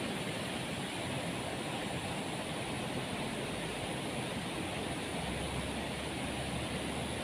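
Steady rushing of flowing stream water, an even noise with no distinct splashes or knocks.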